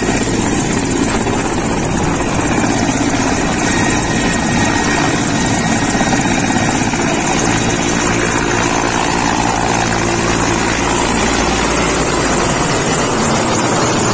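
Mi-17 military transport helicopter at close range, lifting off a helipad and flying low overhead: loud, steady main-rotor and turbine engine noise.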